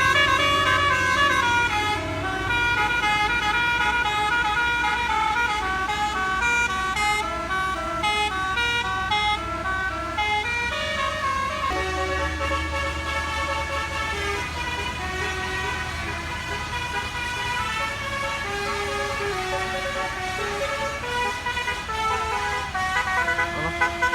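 Bus 'basuri' telolet musical air horn playing a melody in quick stepped notes, over the low steady running of the bus's engine.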